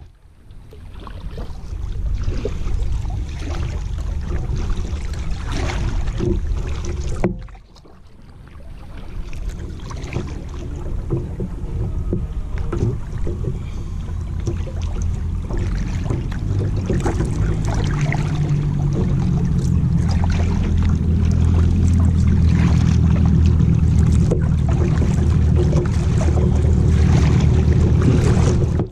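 Kayak paddles dipping and splashing in a fast-flowing river, with wind noise on the microphone that grows stronger through the second half.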